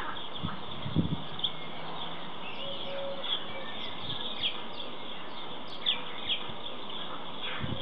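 Small birds chirping, with short high calls scattered throughout. A few low, rapid knocks of white stork bill-clattering come in the first second and start again at the very end.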